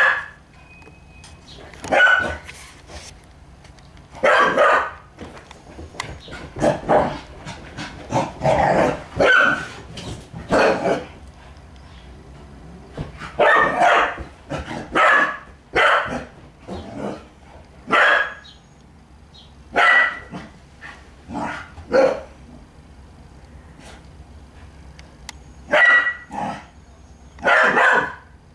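Small terrier puppy barking in short, sharp barks, some in quick runs of two or three and others alone with pauses of a few seconds between. These are play barks aimed at a cat, inviting it to play.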